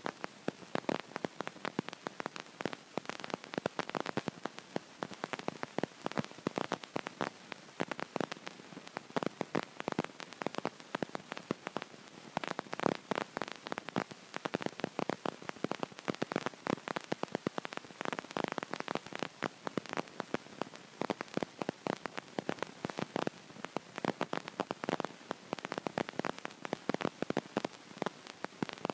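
Continuous dense crackling, like static, made of many small irregular clicks with no steady tone.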